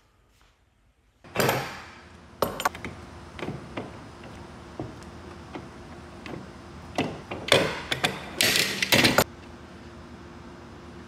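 Metal bar clamps being loosened and taken off a glued-up block of wood strips: clicks and rattles of clamp screws and jaws, with a loud scrape about a second in and a burst of metal-and-wood clatter near the end as the clamps and block are handled on the workbench.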